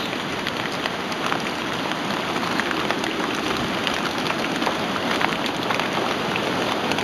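Hurricane storm noise: a steady rushing hiss with many small ticks scattered through it.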